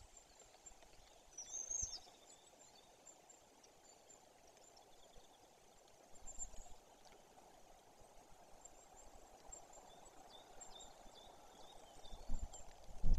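Forest ambience at a treetop nest: a steady faint background rush with small birds chirping briefly, high and thin, now and then, and a few low rumbling thumps near the end.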